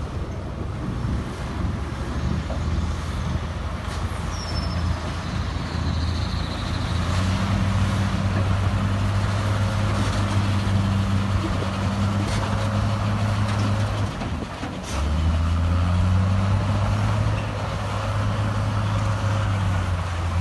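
Heavy earthmoving machine's diesel engine running hard under load. It eases briefly about fourteen seconds in, then picks up again louder. A few sharp metallic clanks and a short high squeal sound over it.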